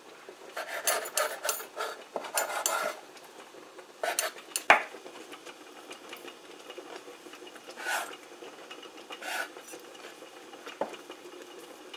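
Kitchen knife cutting through soft rolled dough against a wooden cutting board: a quick run of scraping strokes in the first three seconds, a sharp knock of the blade on the board a little before the middle, then a few sparser scrapes and a click.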